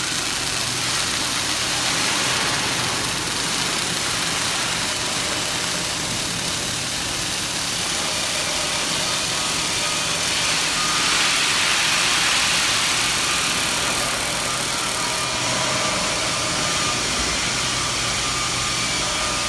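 Steady machine hum with hiss from an industrial robotic welding station, slightly louder about eleven to thirteen seconds in.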